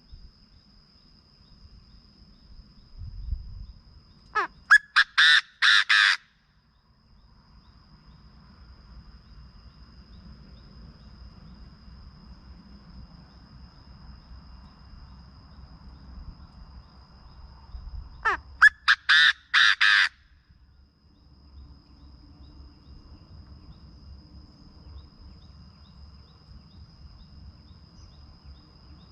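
Chinese francolin calling twice, each call a loud rapid series of about six harsh notes lasting about two seconds, about four seconds in and again near eighteen seconds. A faint steady high-pitched tone runs underneath.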